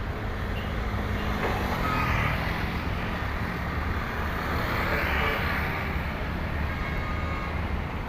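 Road traffic on an uphill road: heavy vehicles' engines running under a steady rumble, with the noise of passing vehicles swelling twice, about two and five seconds in.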